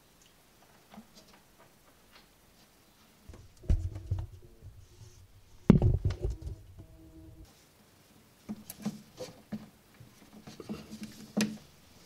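Handling noise as cables and fittings under a desk are worked by hand: scattered light clicks and rustles, with two heavy thumps about four and six seconds in and a burst of clicks near the end.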